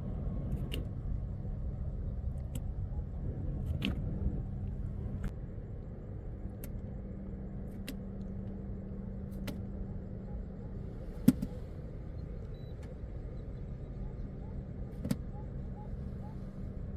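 Steady low road rumble of a vehicle driving, with a faint hum and scattered sharp ticks, one louder knock about eleven seconds in.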